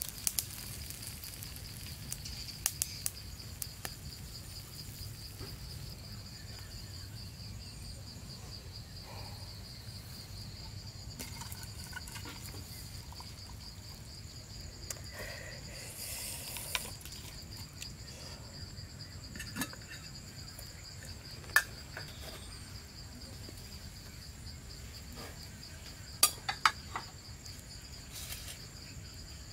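Insects chirring in one steady, continuous high trill, with a few short, sharp clicks scattered through and a small cluster of them near the end.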